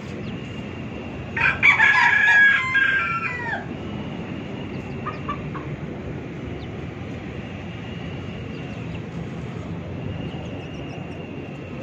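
A rooster crows once, about a second and a half in, a call of about two seconds that ends in a falling note, followed by a short call around five seconds in. A steady low hum runs underneath.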